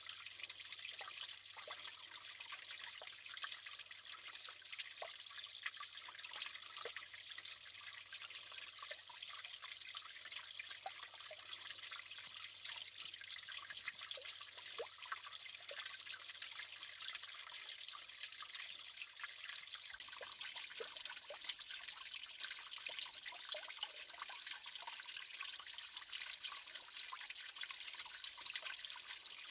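Water trickling steadily, with fine drips and splashes scattered through it, as of a small brook running over stones.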